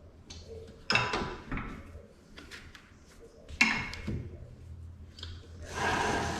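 Sharp metal clicks and knocks from hands working on a drum floor sander, adjusting the sanding belt's tracking, with a steady hiss starting near the end.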